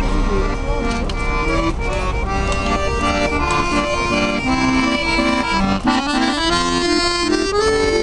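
An accordion playing a tune, its notes held and changing in steps.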